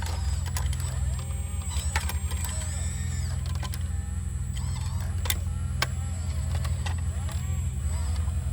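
Sumitomo SH120A3 hydraulic excavator's diesel engine running steadily under working load, with a whine that repeatedly rises and falls as the hydraulics move. A few sharp clicks and knocks come through over it.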